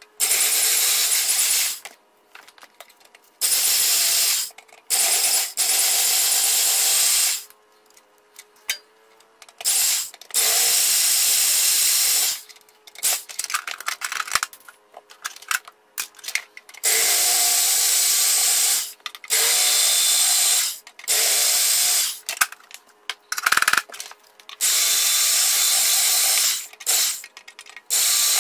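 Electric drill drilling out the steel rivets that hold a tool box's handle, in about ten short bursts of a second or two as the trigger is pressed and released. Clicks and clatter come between the bursts.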